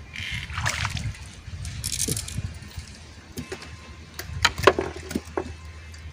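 Water splashing and sloshing, then several sharp knocks in the second half, the loudest a little before the end, over a steady low hum.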